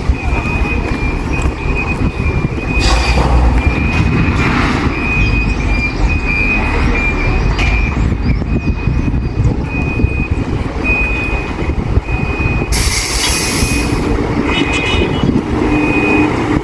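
Gas delivery truck reversing, its backup alarm beeping on one high steady pitch about once a second over the rumble of the engine. A loud burst of hiss breaks in about thirteen seconds in.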